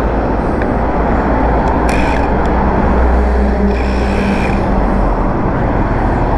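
Steady roadside traffic rumble with wind on the microphone, and two sharp clicks about two seconds in.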